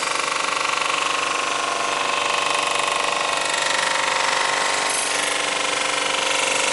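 Cylinder head resurfacing machine running, its cutter milling the deck face of an aluminium VW 1.8T cylinder head: a steady, dense machining noise with a fine rapid pulse and a few steady tones.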